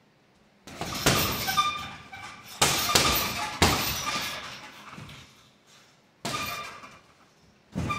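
Boxing-gloved punches landing on a heavy punching bag in quick combinations, each thud followed by a metallic jingle from the bag's hanging chain as it swings.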